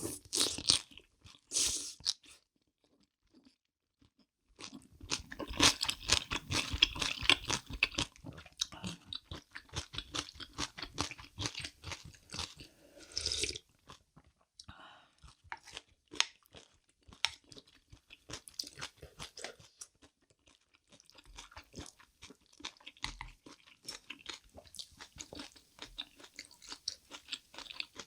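Close-miked crunching and chewing of crisp kimchi. A couple of sharp bites come first, then several seconds of steady crunching, easing into softer chewing in the second half.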